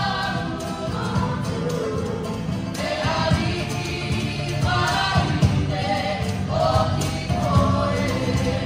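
Live Polynesian dance music: a group of voices singing a song in short phrases over a steady instrumental accompaniment.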